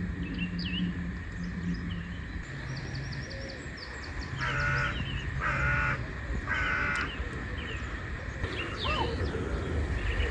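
Outdoor birdsong: a large bird calls three times in quick succession, each call about half a second long, while smaller birds chirp around it. A low steady hum runs under the first two seconds.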